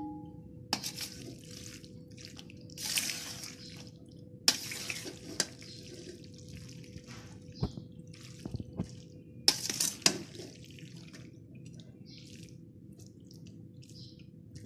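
Cooked spaghetti and macaroni, drained and oiled, being tossed with a spatula in a steel strainer: several short wet squelching swishes, with a few light clicks of the spatula against the metal.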